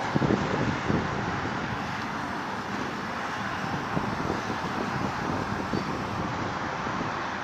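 Steady road traffic noise, with a few gusts of wind buffeting the microphone in the first second.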